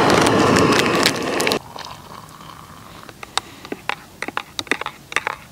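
Gas camping stove burner running with a loud, steady roar that cuts off abruptly about a second and a half in, followed by scattered light clicks and taps.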